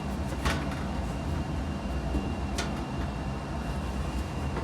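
Two light clicks of the washing machine's control-panel console being handled, about half a second and two and a half seconds in, over a steady low hum.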